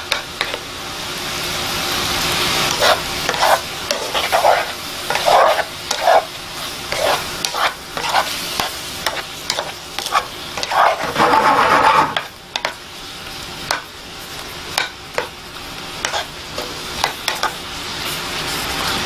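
A utensil stirring and scraping in a pot of cooking fig chutney, in many short strokes with one longer scrape about eleven seconds in, over a steady sizzle.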